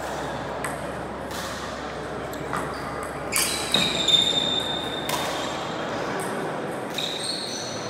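Table tennis ball clicking off the paddles and the table, with a quick run of louder hits about three to four seconds in. A high squeak lasting about a second follows straight after.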